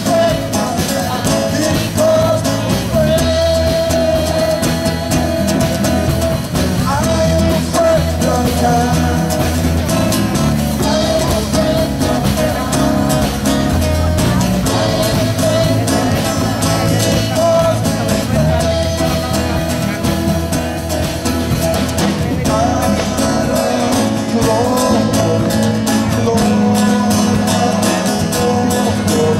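Live worship song: a woman singing into a microphone over a band accompaniment with drums, playing steadily throughout.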